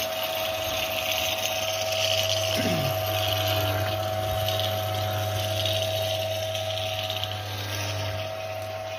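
Electric motor and worm-gear reducer driving a rotary drum sieve that screens vermicompost, running with a steady low hum and a higher whine.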